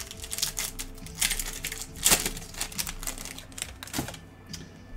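A stack of Score football trading cards being thumbed through by hand: a quick, irregular run of dry clicks and snaps as the card edges flick past one another, loudest about two seconds in, with a last snap near the end.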